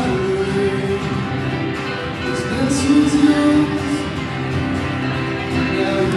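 Live band music: two acoustic guitars strummed along with keyboard, playing steadily.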